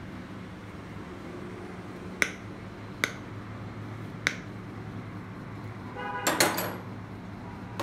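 Steel hand tools being handled: three single sharp metal clicks, then a louder metallic clatter with a brief ring about six seconds in, over a steady low hum.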